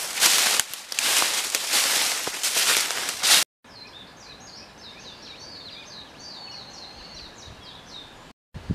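Footsteps crunching through dry fallen leaves, loud and uneven. About three and a half seconds in the sound cuts off, and a small songbird sings quietly: a quick run of high chirping notes.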